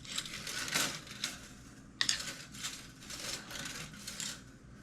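Stringy steel lathe chips crinkling and scraping in irregular, scratchy bursts: swarf that has wrapped around the turned workpiece.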